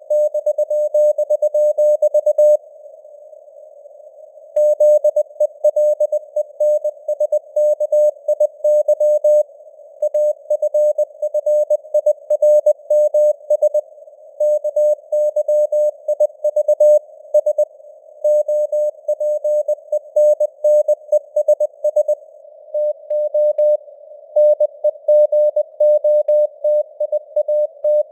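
Morse code (CW) sent at 20 words per minute: a single mid-pitched tone keyed on and off in dots and dashes over a band of simulated radio static, its strength varying as in radio fading (QSB). About two and a half seconds in, the keying pauses for about two seconds before it resumes.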